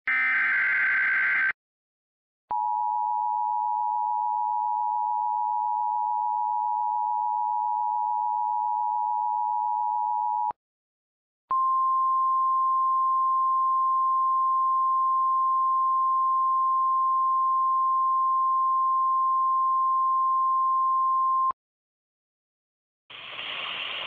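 Emergency Alert System signal: the end of a SAME header data burst, a harsh buzzing warble, then after a second's gap the two-tone EAS attention signal held steady for about eight seconds, a one-second gap, and a single steady NOAA Weather Radio warning tone for about ten seconds. Radio static comes in near the end, ahead of the spoken warning.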